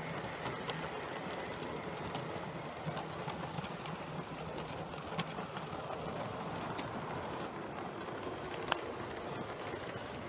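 7mm-scale model train's coaches and vans running past on the track: a steady rolling rumble with a few sharp clicks, one louder near the end.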